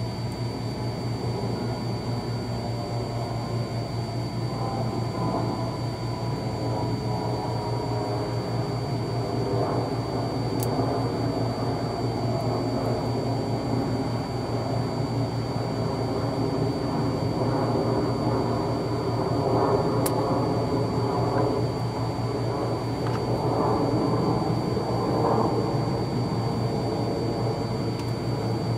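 Steady mechanical hum with a low drone and a thin high whine, like a fan or blower running, with two faint ticks.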